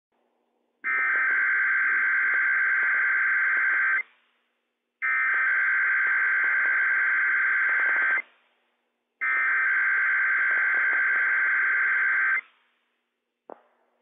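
NOAA Weather Radio's Emergency Alert System SAME header: a buzzy digital data warble sent three times, each burst about three seconds long with a second of silence between. It is the coded start of a Required Weekly Test. A short click follows near the end.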